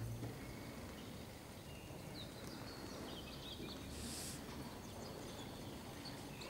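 Quiet indoor riding-arena ambience: a steady low background noise, with a few faint high chirps about two to three seconds in and a short hiss about four seconds in.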